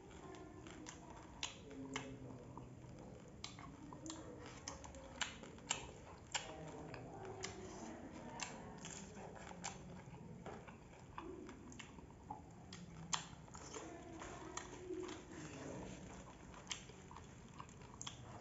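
Close-up eating by hand: sharp, irregular crunches and clicks of crunchy puffed rice and fried snack mix being chewed, along with fingers picking food from a steel plate.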